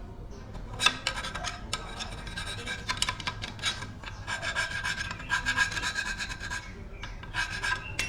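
Hand scraping or filing on metal: a run of rough, uneven strokes starting about a second in, with a faint ringing tone through them.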